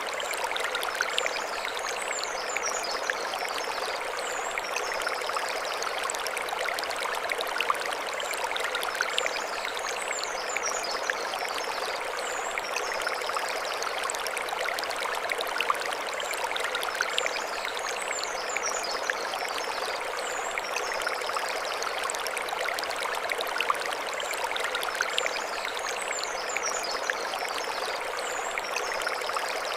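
Mountain stream running over stones: a steady rushing and splashing of water. A short, high chirping phrase recurs every few seconds above it.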